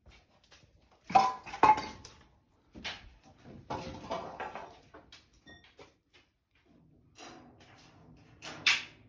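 Sheet-metal ductwork clanking: a few sharp metallic knocks with a brief ring about a second in, a rattling clatter a couple of seconds later, and another loud hit near the end.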